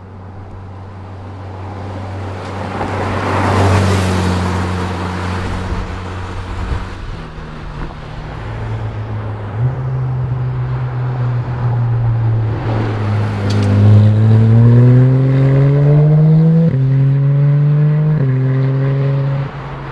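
Porsche 911 GT3 RS's naturally aspirated flat-six passing at light throttle, then accelerating hard: the engine note climbs steeply and drops twice with quick upshifts.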